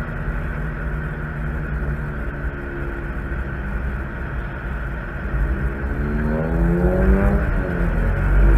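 Fourth-generation Honda Civic hatchback engine running at low, steady speed, then climbing in pitch and getting louder from about six seconds in as the car accelerates onto the track.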